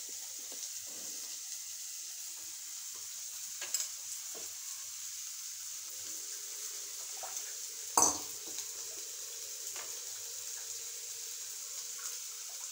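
Onions and spices frying in coconut oil in a nonstick pan, a steady sizzle, with a sharp clink of crockery about eight seconds in and a lighter one near four seconds.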